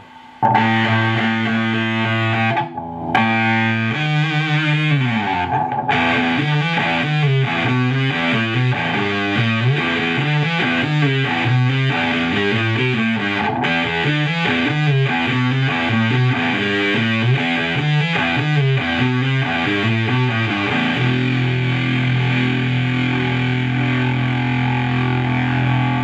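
Electric guitar played through a prototype fuzz pedal based on the Earth Sound Research Graphic Fuzz, into a tube guitar amp. It plays two fuzzy chords and a falling slide, then a fast riff of notes, and ends on a chord held ringing for the last five seconds.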